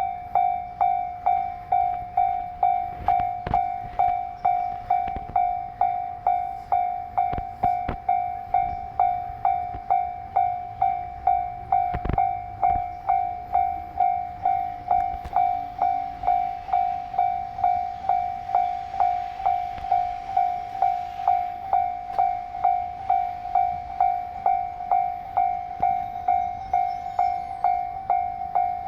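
Japanese level-crossing warning bell ringing steadily, about two strikes a second, each strike one ringing tone. A few sharp knocks sound in the first half.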